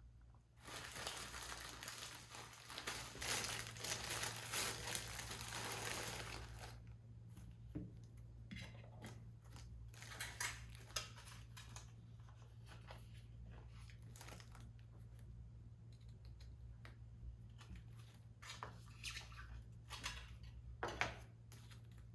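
Crinkling and rustling of something being handled, continuous for about six seconds, then scattered light clicks, taps and short rustles.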